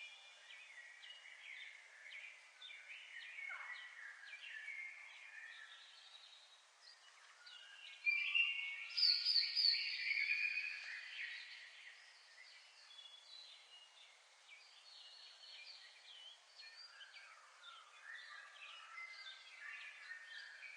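Several small birds chirping and singing at once in many short, overlapping high notes and trills, with a louder run of song about eight seconds in that fades over the next few seconds.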